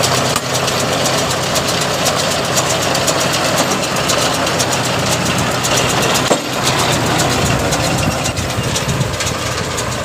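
John Deere 5045D tractor's three-cylinder diesel engine running steadily while it pulls and drives a Green System RB0311 round baler, with the baler's mechanism clattering rapidly and continuously as it picks up straw.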